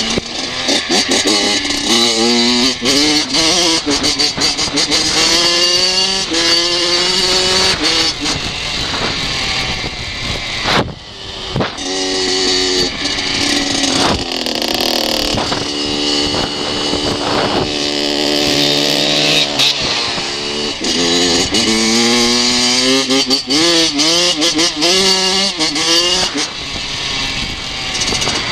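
Two-stroke motocross bike engine heard from on board the bike, its pitch repeatedly climbing under throttle and falling back, with a brief drop off the throttle about eleven seconds in and a steadier stretch in the middle.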